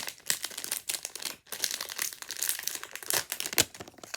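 A plastic Skewb puzzle being twisted and handled: a dense run of irregular plastic clicks and scrapes, with one sharper click about three and a half seconds in.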